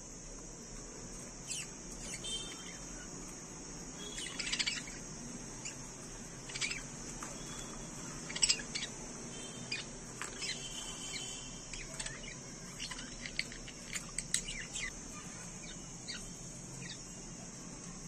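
Budgerigars chirping in short scattered calls with a few brief warbling phrases, some louder calls standing out, over a steady high hiss.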